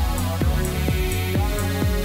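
Electronic dance music played live on synthesizers and a drum machine: a steady four-on-the-floor kick, about two hits a second, each hit dropping in pitch, under sustained synth chords and bass notes.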